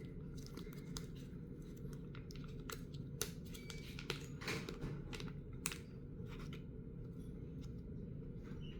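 Scattered light clicks and taps of small parts being handled, over a steady low hum.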